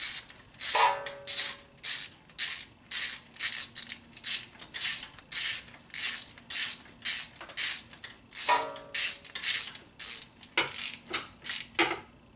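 Ratchet wrench clicking through short back-and-forth strokes, about two a second, driving a starter mounting bolt snug through a long extension and 14 mm socket.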